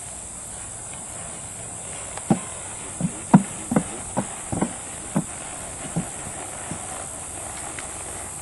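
Hooves of a Quarter Horse striking the ground: about nine uneven hoofbeats over some four seconds in the middle, the loudest a little past halfway, over a steady hiss.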